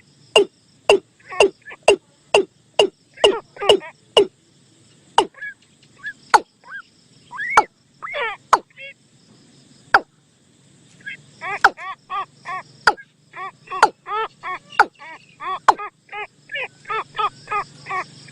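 Bird-call lure recording: a long series of short, sharp calls, each a click and a quick downward sweep, about one or two a second, thinning out in the middle, then a faster run of two or three a second near the end.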